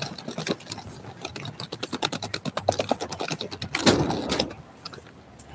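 Handling noise on a phone's microphone: a fast run of clicks and taps, then a louder rustle about four seconds in as the phone is swung about.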